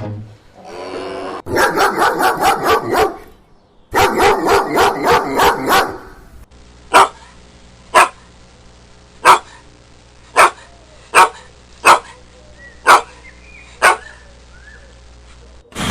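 Dog barking: two quick runs of rapid barks, then single sharp barks about once a second.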